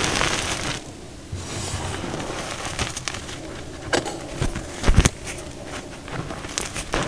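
Hands squeezing and crushing loose powder: a soft rush of powder pouring through the fingers at the start, then crackling and soft taps as fingers press and pat the powder, with a heavier thud about five seconds in.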